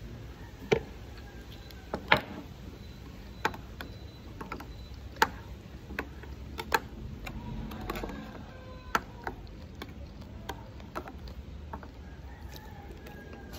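Close-up eating sounds: sharp, irregular clicks and smacks, roughly one every second or so, from a spoon in a glass bowl of açaí and from chewing, over a low steady hum.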